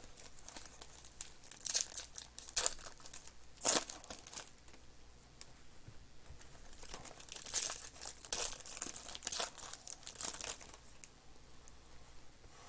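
Panini Mosaic baseball card pack wrappers being torn open and crinkled in the hands, irregular sharp crackles in two busy spells with quieter handling between.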